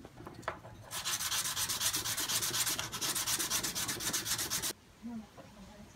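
Hand sanding of a small round shell: quick, even back-and-forth rubbing strokes that start about a second in and stop abruptly near the end.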